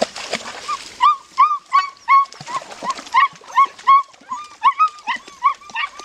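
A six-week-old puppy yelping over and over, short high-pitched cries at about three a second, starting about a second in.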